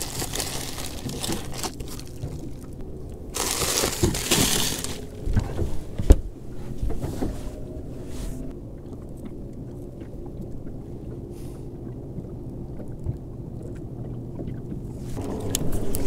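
A plastic bag of soft plastic fishing worms crinkling and rustling as hands dig a fresh worm out to rig it, loudest a few seconds in, with a sharp click about six seconds in. After that comes a quieter low steady background hum.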